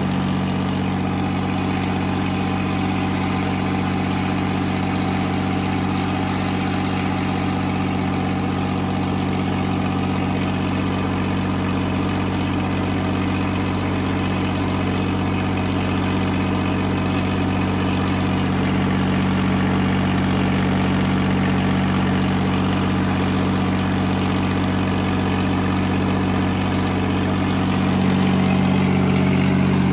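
Sonalika 35 tractor's diesel engine running steadily during a tyre burnout, getting slightly louder near the end.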